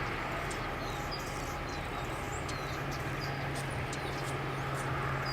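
Steady low hum and background noise, with faint, high, scratchy chips, short down-sliding squeaks and ticks scattered through it, typical of an Anna's hummingbird calling.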